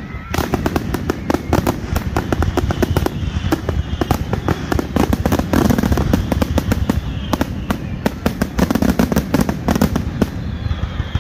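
Fireworks display in a rapid barrage: dozens of bursts and crackling reports in quick succession over a continuous low rumble.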